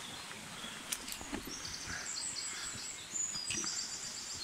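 Birds singing rapid, high-pitched repeated notes over the even rush of a stream, with a few footsteps or knocks on a forest path.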